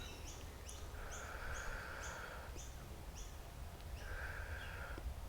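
Small birds chirping: a steady series of short, high notes, about two or three a second. A soft hiss comes in twice, and a low rumble runs underneath.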